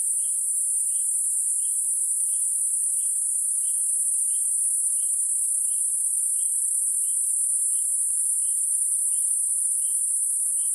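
A steady, loud, high-pitched insect drone from the trees, with a short call repeating evenly about every two-thirds of a second over it.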